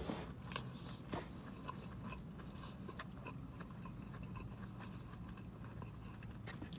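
Quiet room tone inside a car: a faint low steady hum with a few scattered small clicks, one a little sharper about a second in.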